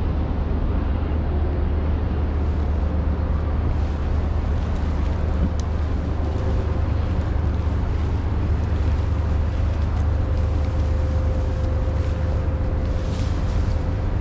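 Steady low rumble of wind buffeting the microphone. Near the end, dry grass rustles as hands push into it.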